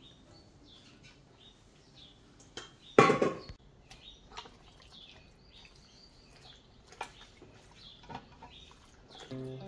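Metal bowl and silicone spatula scraping and knocking against a stainless steel pot as marinated raw chicken is scraped in and stirred, with one loud clank about three seconds in.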